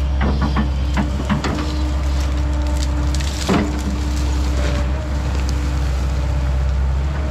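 Kobelco SK210 excavator's diesel engine running steadily, with a drawn-out tone over the engine hum and scattered knocks and clanks from the machine at work, the loudest about three and a half seconds in.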